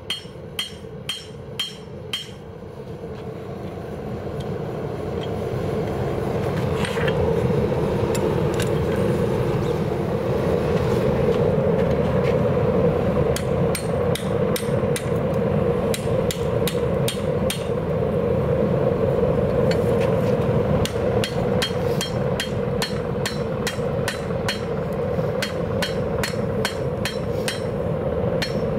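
A hammer striking steel on an anvil at a couple of blows a second, each with a bright ring. Then the steady roar of a propane gas forge's burner builds up and holds. Over it comes a long run of regular hammer blows on a red-hot railroad spike on the anvil, drawing the spike out.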